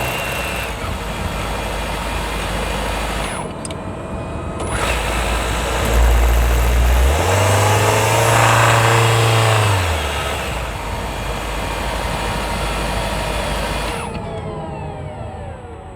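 Hyundai Tucson NX4 Hybrid's 1.6-litre turbo petrol four-cylinder, heard from a microphone on top of the engine, running and revving up about six seconds in, then easing back around ten seconds. The owner records it for a rattle that shows only when the engine pulls under load uphill, which some say is normal.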